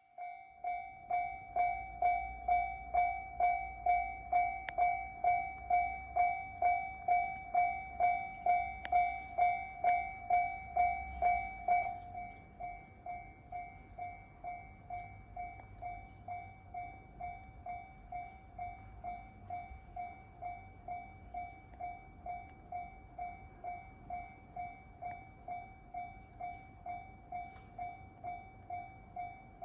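Japanese railway level crossing warning bell starting up and ringing steadily, an electronic two-tone ding about twice a second, with a low rumble under it at first. About twelve seconds in the bell turns much quieter and keeps ringing, the volume reduction Japanese crossing bells make once the barriers are down.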